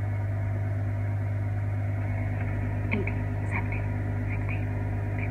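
Steady low electric hum of a kitchen appliance running, with a few faint small clicks in the middle.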